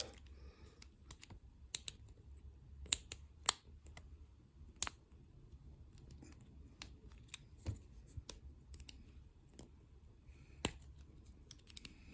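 Small metal tools clicking and scraping against a cut-open EVVA DPI euro lock cylinder while a C-clip is pried off it: irregular sharp ticks, a few louder ones about three seconds in.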